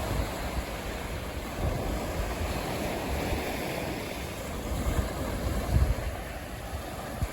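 Gusty wind buffeting the microphone in low, irregular thumps, over a steady rush of surf.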